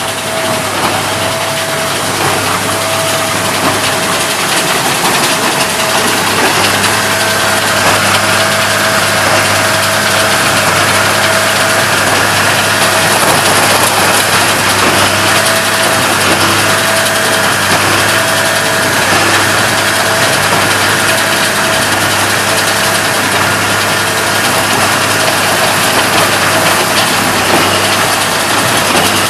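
Tractor engine running and driving a Hesston 4790 large square baler, a loud, steady machine din with a faint tone that pulses a little more than once a second.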